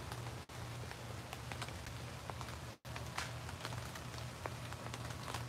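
Steady rain falling, an even hiss dotted with many sharp individual drop ticks, over a low steady hum. The sound drops out for an instant twice.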